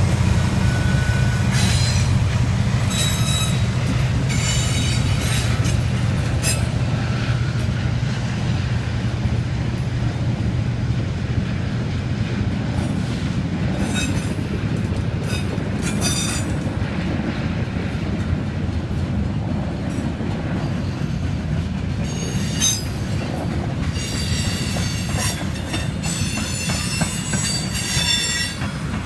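A diesel freight locomotive passes close by, its low engine drone fading over the first ten seconds or so. Freight cars follow, rolling past with a steady rumble, scattered clacks from the wheels, and high metallic wheel squeals that become frequent near the end.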